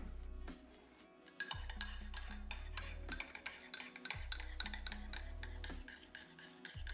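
Metal teaspoon stirring a drink in a ceramic mug, clinking quickly and repeatedly against the inside, starting about a second and a half in. Background music with a steady bass beat plays throughout.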